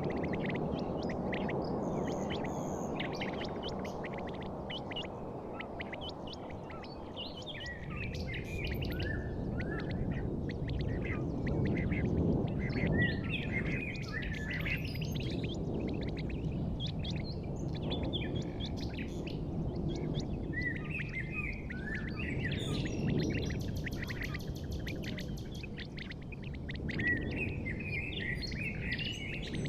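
Birds chirping and calling in quick short notes over a steady low rumble.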